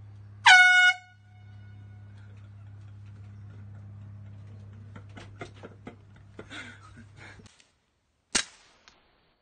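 A loud horn blast of about half a second, followed by a steady low hum with scattered clicks. About eight seconds in, a 1911-style pistol fires one sharp shot.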